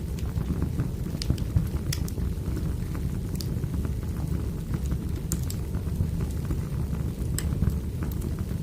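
Firewood burning: a steady low rumble of the fire with irregular sharp crackles and pops of the burning wood.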